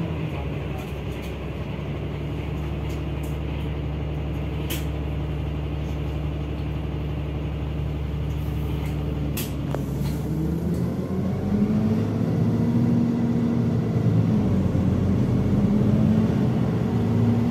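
A NefAZ city bus heard from inside the cabin, its drivetrain running with a steady low drone. Two short sharp sounds come at about five and nine seconds in. From about eleven seconds the drone's pitch rises several times as the bus picks up speed.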